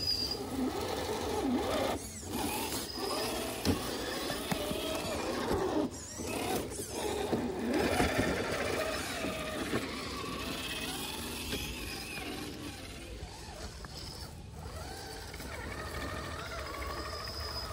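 Small electric motors and gearboxes of radio-controlled rock crawler trucks whining, the pitch rising and falling with the throttle as they climb over rocks, with a few short knocks.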